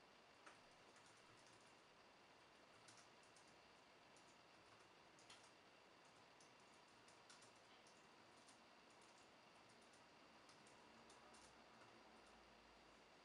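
Faint typing on a laptop keyboard: irregular, scattered keystroke clicks over a low steady hiss.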